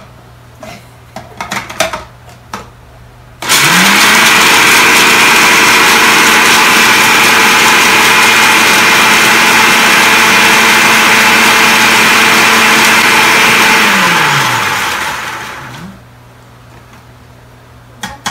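Countertop food processor grinding biscuits into crumbs: the motor spins up about three seconds in, runs steadily for about ten seconds, then winds down with falling pitch. A few light clicks from handling the lid and pusher come before it starts.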